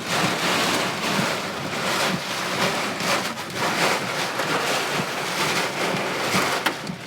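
Heavy rain and wind hitting a stopped car, heard from inside the cabin as a steady rushing patter. A few sharp ticks near the end are small hailstones striking the car.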